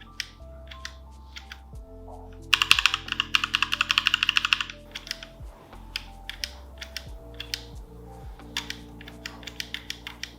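Typing on a Tsunami MK-61 60% mechanical keyboard with Outemu switches. Scattered single keystrokes give way to a fast run of rapid clacks from about two and a half seconds to nearly five seconds in, then scattered keystrokes again.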